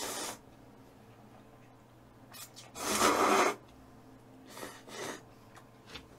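Noisy, breathy mouth sounds of someone eating cup ramen: a short one at the start, a loud one about three seconds in, and two shorter ones around five seconds.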